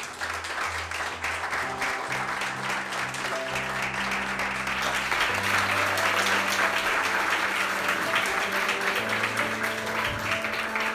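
Audience applauding, with background music of held notes playing beneath it.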